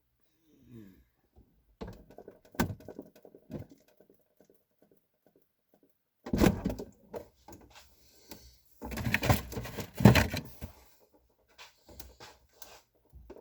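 Scattered clicks, knocks and rustling of objects being handled, with two louder, longer stretches of handling noise about six seconds in and again around nine to ten seconds in.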